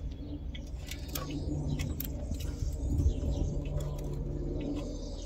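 Light metallic clicks and scrapes of a feeler gauge set, its steel blades clinking as one is slid between a rocker arm and valve stem to check valve clearance, over a steady low hum.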